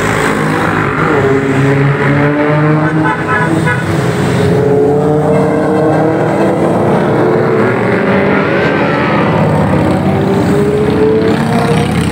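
A stream of motorcycles running past on the road, several engines at once with their pitches overlapping and slowly rising and falling.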